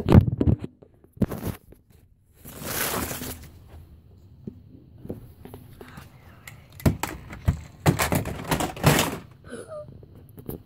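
A series of thumps and knocks from things being moved and handled: a loud thump at the start, another knock about a second later, a burst of rustling, then a cluster of clattering knocks near the end.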